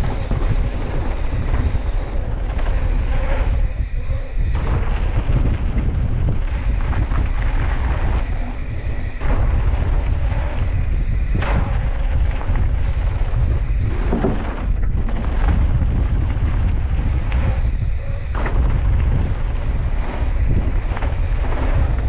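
Loud wind buffeting the microphone of a mountain-bike rider descending a dirt trail at speed, a steady deep rumble, with scattered knocks and rattles from the bike over bumps.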